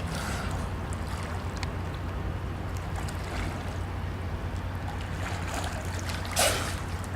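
Pool water sloshing and splashing as a person swims, over a steady low rumble, with a short louder burst of noise near the end.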